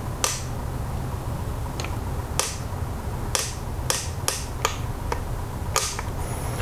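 Ratchet wrench clicking in short, single sharp clicks spaced irregularly, some half a second apart, as the small bolts of a BMW M20 engine's camshaft seal housing are run in. A steady low hum runs underneath.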